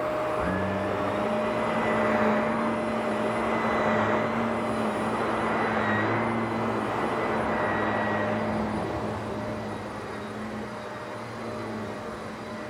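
Vacuum cleaner running steadily: a motor whine over rushing air. A lower hum joins about half a second in, and the sound gets somewhat quieter over the last few seconds.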